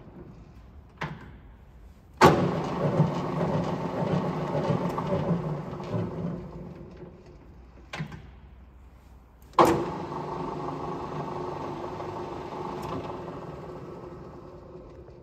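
Colchester Bantam lathe headstock started twice. Each start comes with a sharp clunk, then the steady whir of the spindle and its gearing, which slowly fades as it runs down. Lighter clicks come about a second in and about eight seconds in, as the headstock levers are shifted.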